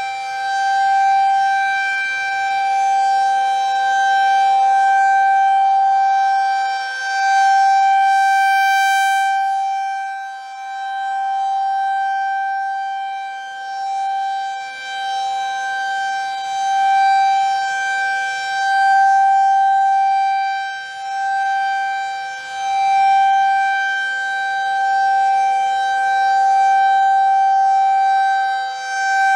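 Federal Signal 2001 tornado siren sounding a steady alert tone, one unchanging pitch that swells and fades every few seconds as the rotating horn turns toward and away.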